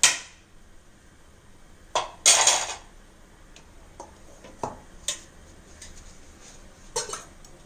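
A spoon clinking and scraping against a cooking pot: a handful of separate knocks, with one longer scrape about two seconds in.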